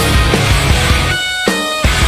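Skramz/emo band's studio recording: distorted electric guitars, bass and drums playing loud. About a second in, the bass and low end drop away, leaving guitar notes ringing with a couple of sharp hits, before the full band comes back in near the end.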